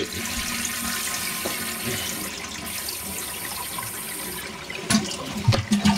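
35-year-old standard toilet flushing with its supply valve shut, a steady rush of water as the tank and bowl empty. A few knocks near the end.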